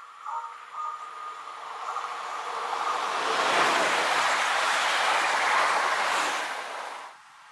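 A Bombardier Talent 2 electric multiple unit passes at speed. Its wheels and running gear make a rushing noise that swells as it approaches, is loudest as it goes by close, and cuts off suddenly near the end.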